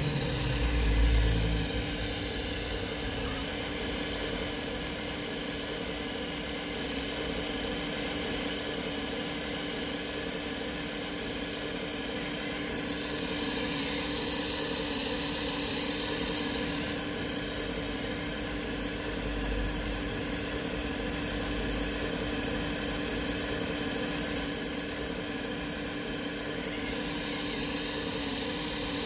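Radio-controlled model construction machinery running: a steady, high-pitched electric motor whine, somewhat louder about halfway through.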